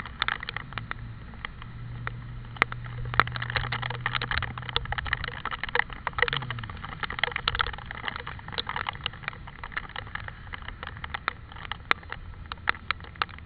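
Heavy rain falling, with many irregular sharp drop hits close by and a crackling patter throughout. A steady low hum runs underneath for about the first five seconds.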